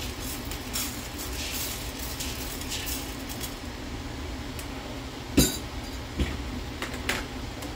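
Rinsed navy beans poured from a plastic colander into a slow-cooker's crock, the beans rattling and pattering into the pot for the first three seconds or so. A sharp knock about five and a half seconds in, with a couple of lighter knocks after, as things are set down on the counter.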